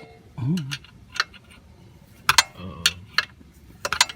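Sharp clicks at irregular intervals, likened to the clicking of the Predator, with a short wavering low tone about half a second in.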